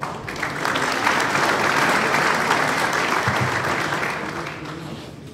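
Applause sound effect: a crowd clapping, starting suddenly, then fading out over the last second or so before cutting off.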